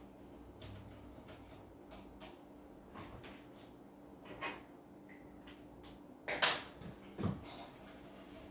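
Scattered handling sounds: a few knocks and rustles as small tools are picked up from and set down on a plywood box and a thick three-strand climbing rope is handled, over a faint steady hum.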